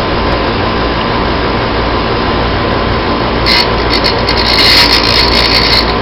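Bench grinder running steadily; from about three and a half seconds in, a worn drill bit is pressed to the spinning grinding wheel in a series of short grinds as it is sharpened freehand.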